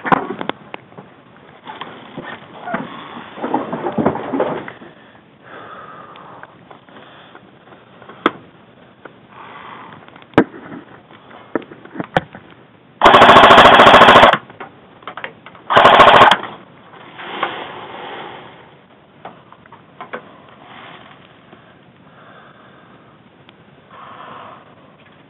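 Airsoft rifle firing two rapid full-auto bursts, the first about a second long and the second shorter, a couple of seconds later. Scattered clicks and rustling of gear being handled come before and after.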